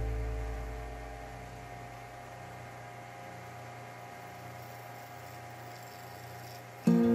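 Wood lathe running with a faint, steady electric motor hum. A low rumble fades away over the first couple of seconds.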